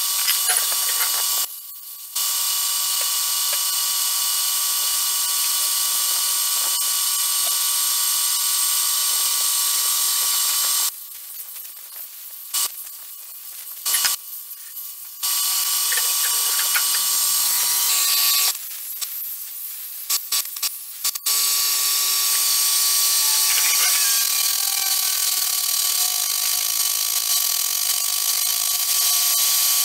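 Compressed-air blow gun hissing in long blasts as it blows dirt and brake dust out of a pickup's rear drum brake. The hiss stops and starts again a few times, with short breaks about a third of the way in and again past the middle.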